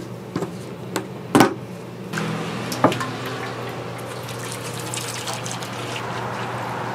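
A few clicks and a sharp knock as the plastic spout cap comes off a large tin of cooking oil. Then, about two seconds in, a steady pour as the oil streams from the tin into an empty aluminium frying pot, filling it.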